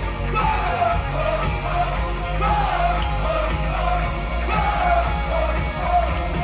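Music with a singing voice over a heavy bass line.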